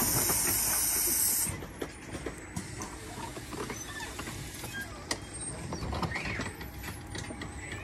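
Compressed air hissing out of a pneumatic Halloween prop, a loud steady hiss that cuts off abruptly about a second and a half in. After that it is much quieter, with scattered faint clicks.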